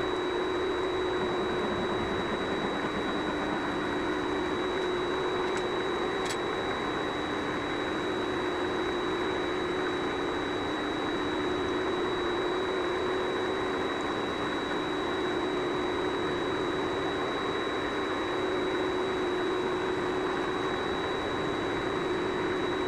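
Vevor MX400 mini lathe running steadily with a thin high whine over its hum, as a scissor-style knurler presses into a turning brass workpiece. There is one brief click about six seconds in.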